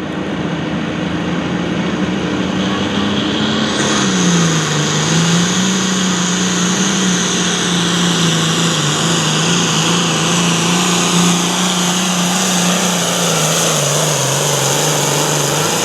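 Hot farm class pulling tractor's turbocharged diesel engine running hard under load during a pull. The engine note dips slightly about four seconds in and then wavers, with a high turbo whine over it from that point.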